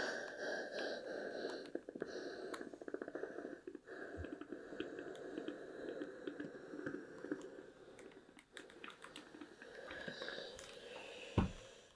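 Steam iron sliding and pressing over a folded cotton hem, with hands smoothing the fabric: a steady scratchy rubbing with fine ticks, and a soft thump near the end.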